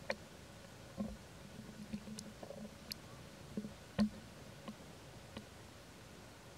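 Dry leaf litter crackling in scattered, irregular taps and ticks under a young macaque's hands and feet as it moves and forages, with the sharpest tap about four seconds in.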